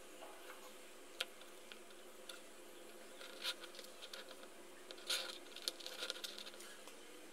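Faint handling noise: scattered small clicks and brief rustles as fingers move jumper wires, a breadboard and a sound sensor module on a cutting mat, over a steady low background hiss.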